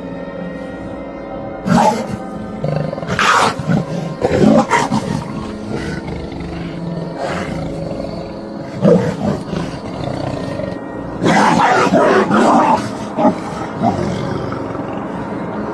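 Harsh animal snarls and growls in short bursts, repeated every second or two with a longer run near the end, over steady background music.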